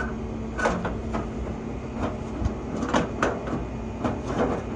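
Air-cooled VW 1915 cc flat-four idling steadily, with several knocks and scrapes as the engine lid is pushed into place over it.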